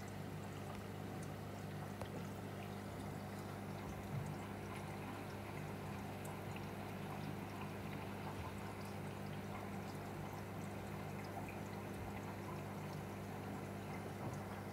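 Aquarium filter running: a steady motor hum with water continuously trickling and pouring into the tank.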